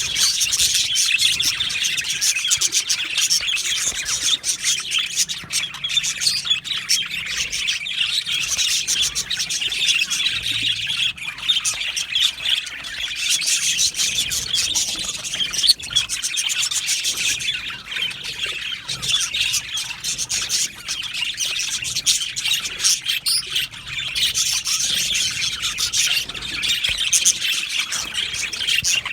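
A colony of budgerigars chirping and warbling together, many birds at once, in a dense, continuous chatter.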